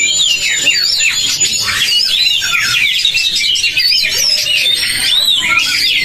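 Many caged oriental magpie-robins (kacer) singing at once in a song contest: a dense, overlapping chorus of rapid whistled phrases and slurred up-and-down glides.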